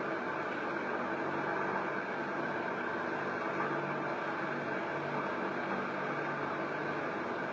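A fan running: a steady whir with a faint low hum underneath.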